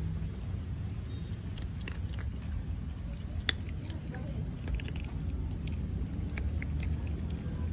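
An otter chewing dry kibble pellets with its mouth open: a string of crisp crunches and clicks, one sharper crack about three and a half seconds in. A steady low rumble sits underneath.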